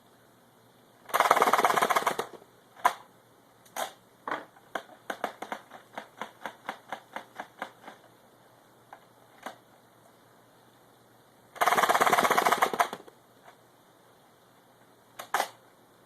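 Battery-powered Buzz Bee Ultra-tek Cyclonic foam dart blaster firing two rapid bursts of about a second each, with a run of about three to four sharp clicks a second in between and a few single clicks.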